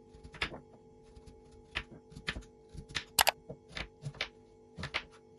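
Kitchen knife cutting through a peeled raw sweet potato and knocking on a wooden cutting board: about ten irregular chops, the loudest a little past three seconds in.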